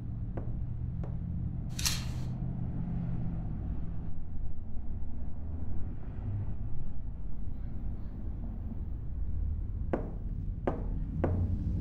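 Recreated Foley sound effects: a steady low rumbling hum, with a short burst of hiss about two seconds in and a few light clicks. Several sharper knocks come near the end.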